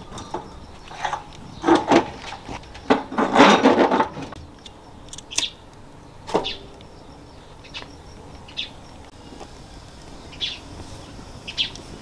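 Metal clattering and knocks from a rusty barrel fire pit being handled and set up, loudest in a rough burst about three to four seconds in. Later, short high chirps of small birds, several times.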